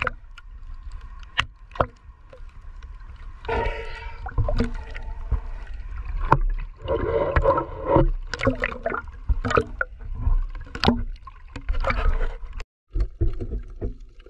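Seawater lapping and splashing against a camera held half-submerged at the surface, with gurgling and sharp clicks as small waves wash over it. The sound cuts out briefly near the end.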